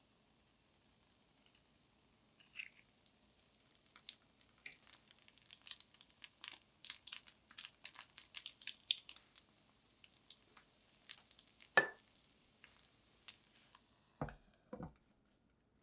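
Faint crackling and many light ticks in a pan of egg and lentil batter as diced smoked chicken is scattered over it. Then a sharp click, and two knocks near the end as a glass lid is set onto the pan.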